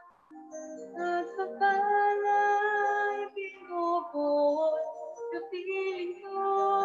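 A woman singing a slow song with musical accompaniment, in held, sustained notes; a short pause between phrases just at the start, then the singing resumes about a second in.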